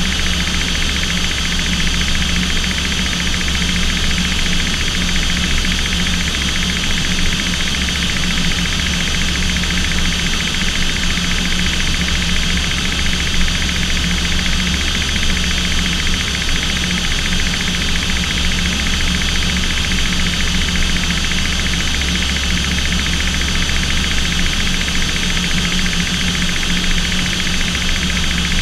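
Steady, loud drone of an aircraft's engines heard from inside the cockpit in flight, a constant mix of engine tones and rushing noise with no change in pitch.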